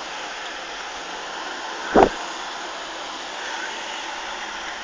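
Steady rushing background noise, with one short, loud thump about two seconds in.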